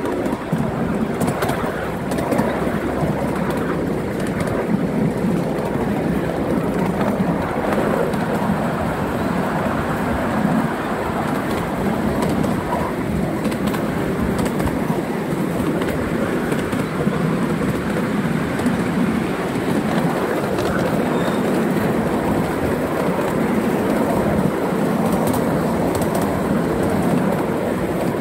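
Ride-on miniature steam railway train running along its track, heard from a passenger car: a steady running noise of wheels on rails with a few faint clicks.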